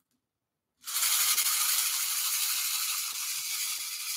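Beads trickling down through a toy rainmaker rattle tube, a steady hissing trickle that starts abruptly about a second in after a moment of silence.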